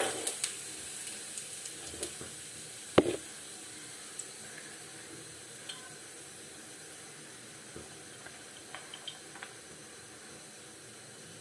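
Cumin seeds (jeera) sizzling in hot oil in a kadhai: a steady hiss that slowly dies down, with scattered small pops and one sharp crackle about three seconds in.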